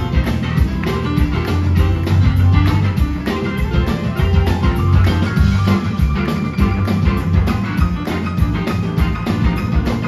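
Live blues-rock band playing an instrumental passage of a slow blues: electric guitars and organ over bass and a drum kit keeping a steady beat.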